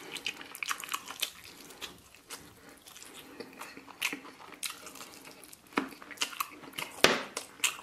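A person biting and chewing roast duck meat off the bone, with irregular sharp smacks and clicks of the mouth, the loudest about seven seconds in.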